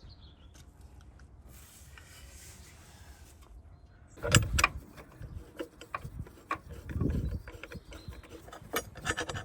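Metal tools and engine parts clinking and knocking as they are handled during engine work. Irregular sharp clicks start about four seconds in, with a couple of duller thumps.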